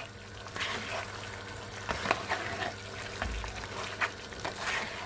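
Spatula stirring and scraping chunks of curry-seasoned goat meat around a nonstick pan, with a low sizzle of the meat frying and irregular scrapes and knocks.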